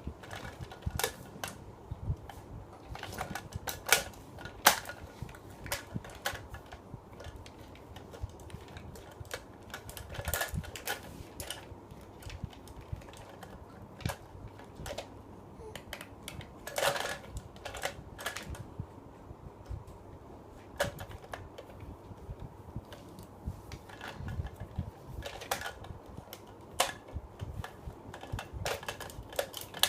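A child knocking and tapping things while eating: irregular sharp clicks and taps, sometimes a few in quick succession, with short pauses between.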